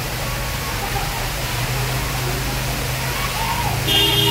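Heavy torrent of water pouring down a wall onto a flooded walkway, a steady rushing. Near the end a vehicle horn sounds briefly.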